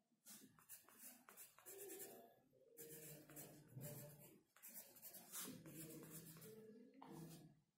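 Pencil scratching on sketchbook paper as capital letters are written, in quick short strokes broken by a few brief pauses.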